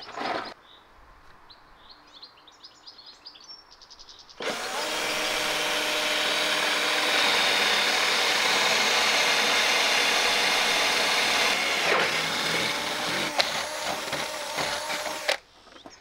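Cordless drill running steadily under load, boring a hole through the plywood panel at a corner of the marked-out cutout, the entry hole for a jigsaw. It starts about four seconds in and stops abruptly just before the end.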